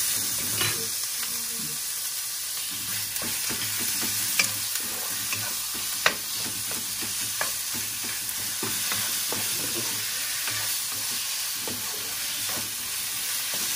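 Ground pork frying with onion, garlic and ginger in a nonstick wok, a steady sizzle. A wooden spatula stirs and scrapes the meat, with sharp clicks of utensils against the pan now and then, the loudest about six seconds in.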